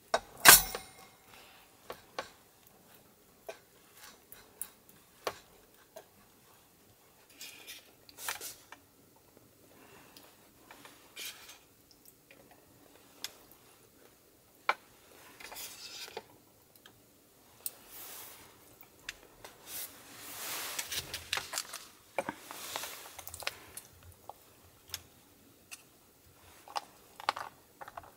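A ceramic clay-pot lid set down with one sharp clack about half a second in, then scattered light clicks of wooden chopsticks against food boxes and plastic trays. A few seconds of rustling plastic food containers about two-thirds of the way through.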